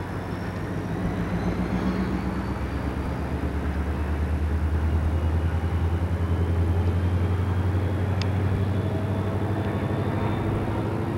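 Southern Pacific diesel-electric locomotives rolling slowly past, their engines a steady low drone that grows louder over the first few seconds and then holds.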